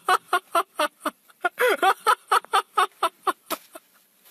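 A person's voice in quick, short syllables, several a second, with hardly a pause.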